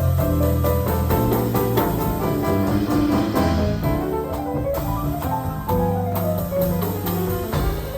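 Jazz piano trio playing live: piano carrying melodic lines over a walking bass, with the drums keeping steady time on cymbals.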